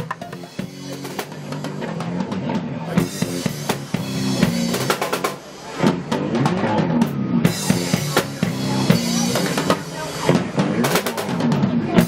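Band music: a drum kit played in a steady groove under a moving bass line.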